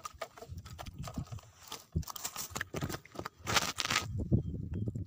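Hooked barramundi thrashing and splashing at the water's surface in a series of irregular splashes, with the loudest burst of splashing about three and a half seconds in, followed by dull knocks.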